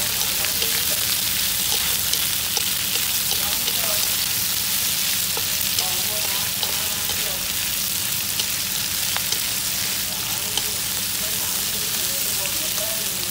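Sliced pork sizzling in hot oil in a wok while being stir-fried with chopsticks: a steady frying hiss with scattered light clicks.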